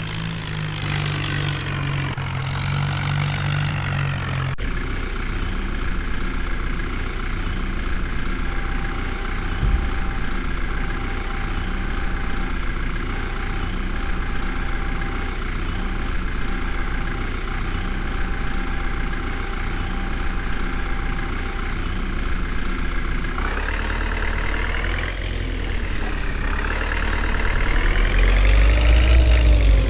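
A heavy diesel engine running steadily. In the last several seconds it revs up and down a few times and grows louder.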